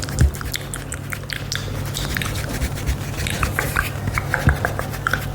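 Close-up ASMR mouth sounds: irregular wet clicks and smacks of tongue and lips, quick and uneven, over a low steady hum.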